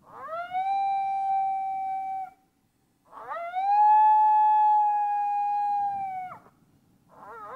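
Coyote lone-howl calls from a predator call: two long howls, each sliding up and then held steady before dropping off at the end. A third howl starts near the end with a wavering, broken beginning.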